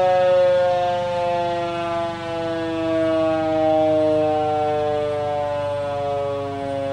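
Kuangbad RF300V vertical motor-driven siren sounding several tones at once, the whole chord sliding slowly and steadily down in pitch.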